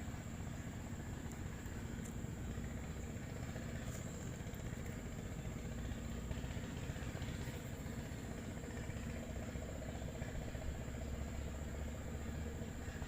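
A small engine running steadily at an even speed, with a constant high-pitched tone over it.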